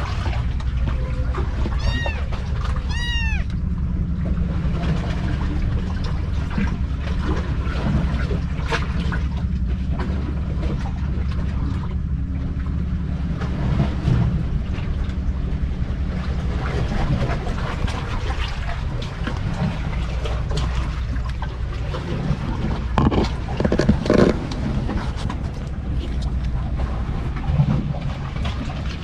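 A young kitten mewing: a few thin, high, rising-and-falling mews in the first few seconds, over a steady low rumble. Scattered rustles and knocks come in the second half.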